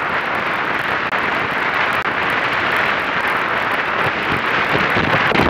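Wind noise on a boat-mounted action camera's microphone, mixed with water streaming past an A-class catamaran's hull under sail, as a loud, steady hiss. A low thump comes near the end.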